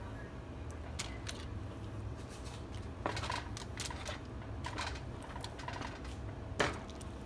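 Metal kitchen tongs clicking and tapping on a foil-lined baking sheet as baked pork rib pieces are turned over, with a sharper knock near the end. A steady low hum runs underneath.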